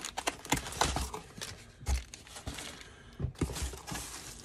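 Cardboard box, paper instructions and packing being handled: rustling and crinkling with scattered light clicks and a few soft knocks.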